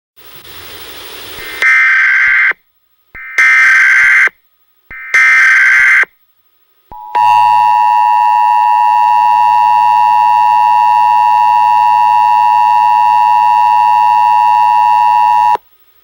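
US Emergency Alert System tones: three short, buzzy bursts of SAME digital header data, about a second each, which code an Emergency Action Notification. Then comes the two-tone attention signal (853 and 960 Hz sounded together), held steady for about eight seconds before it cuts off suddenly.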